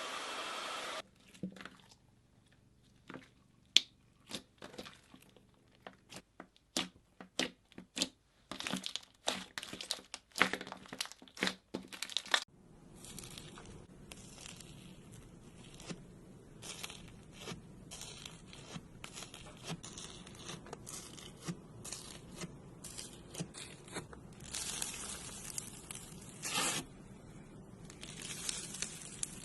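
Slime being squeezed and stretched by hand. Sharp separate pops and clicks come first, then a steadier wet crackling.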